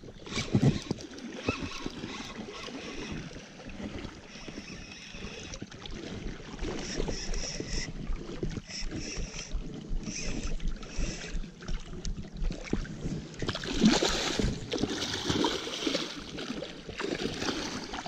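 Water splashing and churning in a shallow river as a hooked king salmon thrashes at the surface during the fight, irregular and choppy, loudest about fourteen seconds in.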